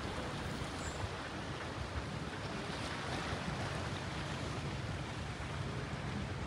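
Wind blowing on the microphone outdoors: a steady rushing noise with an uneven low rumble from gusts buffeting the mic.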